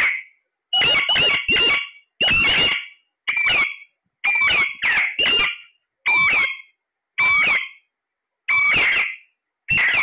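Alexandrine parakeets giving loud, repeated screeching calls, about a dozen short calls in ten seconds, some in quick runs of two or three with brief pauses between.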